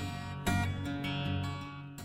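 Background music: strummed acoustic guitar, a chord struck about half a second in and left to ring, fading away.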